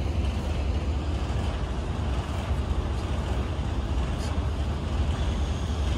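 Steady low rumble with an even hiss above it, unchanging throughout, with no distinct knocks or voices.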